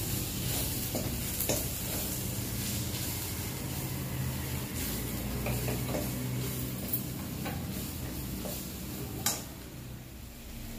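Onion-tomato masala with green chillies and spice powders sizzling in a stainless steel kadai as a steel spoon stirs and scrapes through it, with scattered clinks of spoon on pan. A single sharper knock comes about nine seconds in, and the sizzling then dies down.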